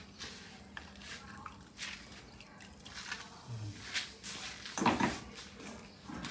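Light kitchen clatter: scattered clicks and knocks from handling things at the stove, with a louder knock about five seconds in.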